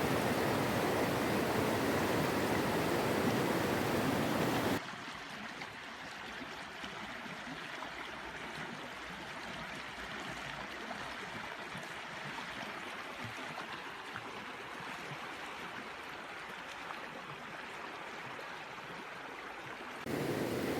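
River water flowing, an even rushing noise. It drops abruptly to a quieter level about five seconds in and jumps back up shortly before the end.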